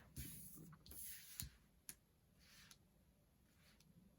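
Near silence: room tone, with a few faint soft clicks and rustles in the first two seconds.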